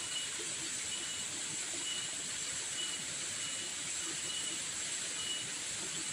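Steady high-pitched insect chorus, with a short high chirp repeating about once a second.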